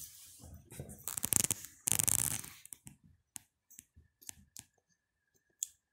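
A small precision screwdriver scraping and prying inside an opened Samsung Gear S2 smartwatch case, followed by a run of small, scattered clicks as the watch parts are handled.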